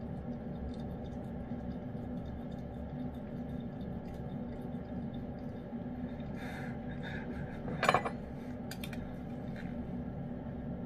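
Lynx point Siamese cat licking and chewing wet chicken pâté from a small can, soft wet clicks over a steady low hum. About six and a half seconds in a utensil scrapes, then clinks sharply against the metal can as pâté is scooped out.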